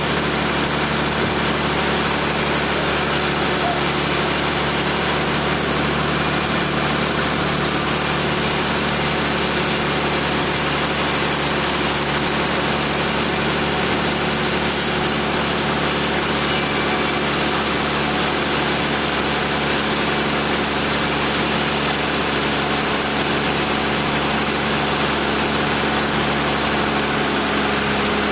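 Sawmill machinery running steadily, a constant engine-like hum under a dense mechanical noise with no strokes or changes.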